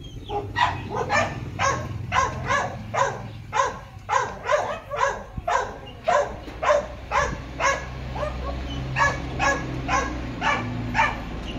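Chow chow barking in short, evenly spaced barks, about two a second.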